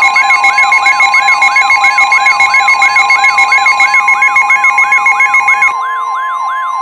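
Simulated NOAA Weather Radio severe weather alarm tones: a steady tone near 1050 Hz like the standard weather radio warning tone, layered with a sweeping wail that repeats about three times a second and fast-pulsing beeps. The pulsing beeps drop out near the end while the wail and the steady tone carry on.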